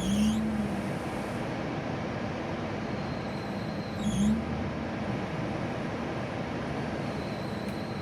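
Infiniti G35's engine running steadily, with two short squeals from the accessory drive belt, one at the start and one about four seconds in.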